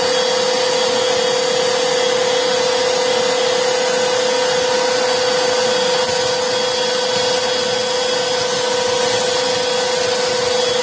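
Two Black+Decker Pivot cordless handheld vacuums, an 18 V and a 20 V Max, running together at full suction. A steady motor whine carries a strong, unchanging hum and fainter high tones.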